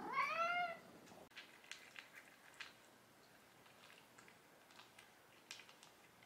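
A cat meows once in the first second, the call rising and then falling in pitch. Then faint, scattered crunching clicks as the cat eats dry kibble from its bowl.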